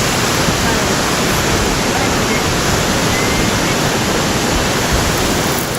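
Loud, steady rushing noise of surf and wind, even throughout with no distinct wave breaks.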